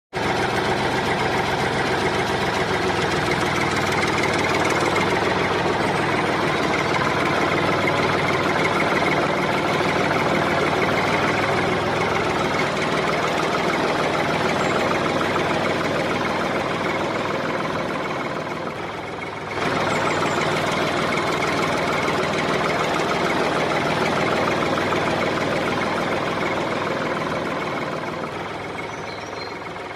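Tractor diesel engine running steadily, with a break about two-thirds of the way through before it carries on.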